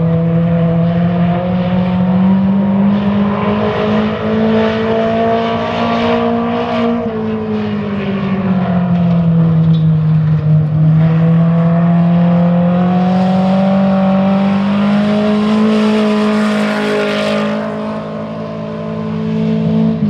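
A dirt-track race car's engine running hard on a qualifying lap, its note climbing and falling slowly as it goes around the oval.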